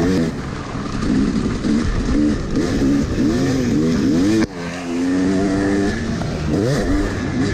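Yamaha 250 two-stroke motocross bike engine heard from on the bike, revving up and down again and again as the rider works the throttle along the track. About four and a half seconds in the revs cut off abruptly, the engine runs at a steadier pitch for a moment, then revs rise and fall again near the end.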